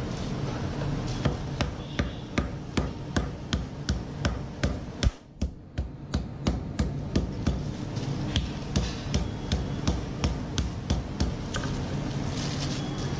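A steady series of sharp knocks, about two to three a second, with a brief pause about five seconds in, over a low steady hum.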